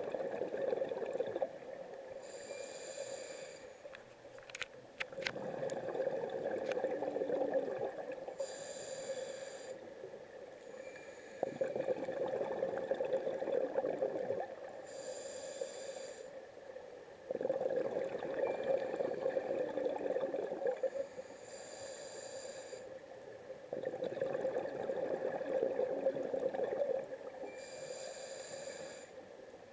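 A scuba diver breathing through a regulator underwater: a short hissing inhale, then a longer rush of exhaled bubbles, repeating about every six seconds for five breaths. A few sharp clicks come about five seconds in.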